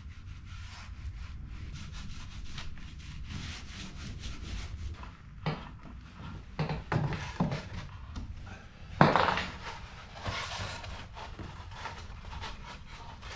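Rigid foam insulation boards being handled and fitted against wooden wall framing, with the foam rubbing and scraping throughout. A few knocks come from about five seconds in, and one loud knock comes about nine seconds in.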